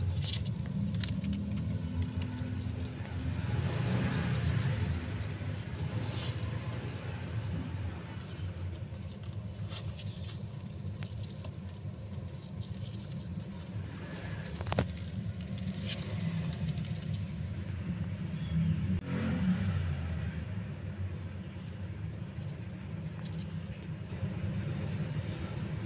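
A steady low rumble, with a few faint scrapes and one sharp click about fifteen seconds in.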